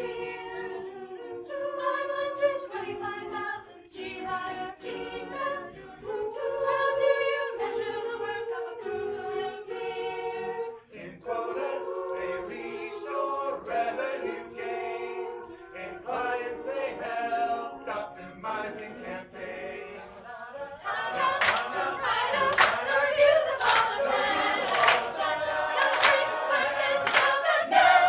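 Mixed men's and women's a cappella choir singing in close harmony, with no instruments. About three quarters of the way through, the singers start clapping on the beat, roughly once a second, and the singing grows louder.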